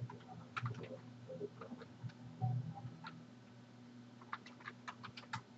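Computer keyboard keys clicking in irregular keystrokes as a command is typed, with several in quick succession near the end. A faint low hum runs underneath.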